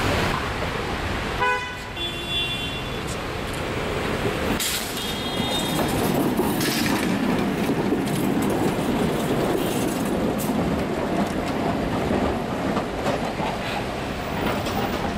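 Electric tram going by on its rails: a short horn toot about a second and a half in, brief high squeals, then the rumble of a green articulated tram rolling past close by.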